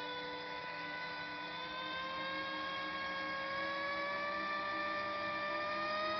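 Quadcopter electric motors and propellers on a homemade RC flying car whining steadily, the pitch rising slowly and the sound growing a little louder as the motors speed up.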